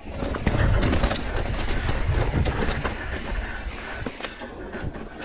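Mountain bike rolling fast down a dirt singletrack: tyres running over dirt, roots and rocks, and the bike rattling with many small knocks. It is loudest over the first few seconds and eases somewhat after.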